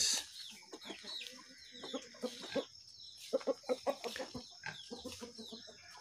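A rooster clucking in short, irregular clucks, with faint high chirping above it.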